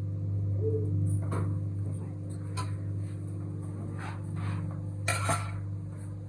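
A few light clinks and knocks over a steady low hum, the loudest clatter about five seconds in.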